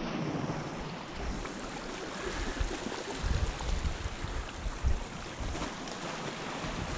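Sea water washing and lapping against shoreline rocks, with occasional gusts of wind buffeting the microphone.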